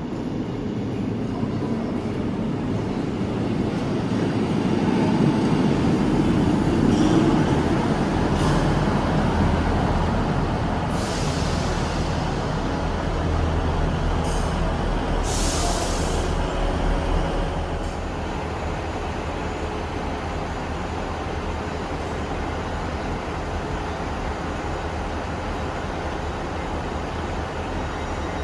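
A train running past on the rails. Its rumble builds to a peak about seven seconds in, with a few short bursts of hiss around the middle, then settles to a steadier, lower noise.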